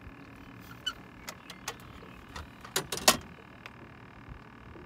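Scattered sharp clicks and knocks as a fish is handled in a landing net and the gear is set down in a boat, with the loudest knocks about three seconds in.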